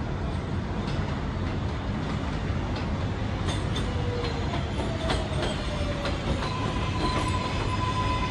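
A moving vehicle rumbling steadily, with scattered clicks. Thin squealing tones come in about halfway through and hold steady toward the end.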